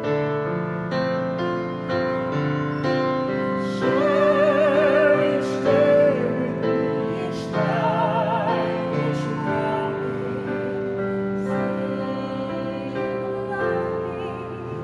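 Digital piano accompaniment with a man and a woman singing a duet in a classical, operatic style with wide vibrato. The voices come in about four seconds in and drop away after about ten seconds, leaving mostly piano with a brief sung phrase near the end.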